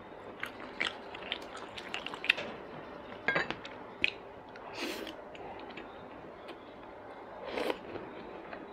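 Close-up eating sounds: wet chewing of a mouthful of rice, with many small mouth clicks and smacks. There are a few sharper clicks, the loudest about three seconds in, and soft swells of chewing noise near the middle and toward the end.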